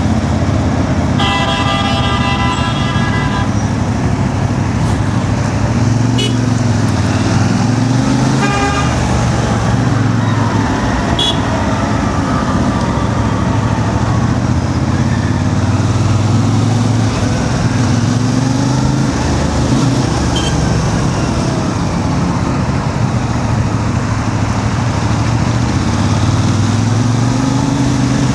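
A CF Moto 450 MT's parallel-twin engine running and rising and falling in pitch through stop-and-go traffic. A vehicle horn honks for about two seconds about a second in, with a shorter honk near nine seconds.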